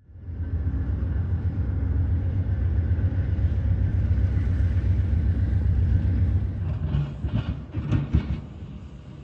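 A passing train: a loud, steady low rumble, with a few clacks about seven to eight seconds in, after which it drops quieter.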